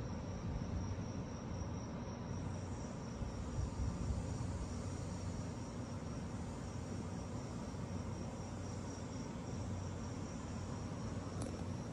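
Crickets chirping in a steady, evenly pulsing high trill, over a continuous low rumble.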